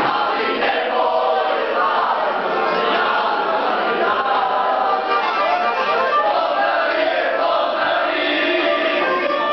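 A group of young men singing together in chorus, many voices at once, the singing steady and unbroken.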